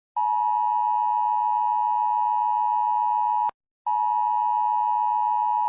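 Emergency broadcast attention tone: a steady electronic tone just under 1 kHz with fainter overtones. It breaks off for a moment about three and a half seconds in, then sounds again.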